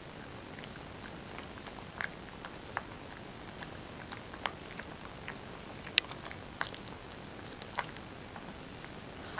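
Japanese Chin puppy chewing and biting a broccoli floret: irregular small crunches and wet clicks, a few a second, with one louder snap about six seconds in.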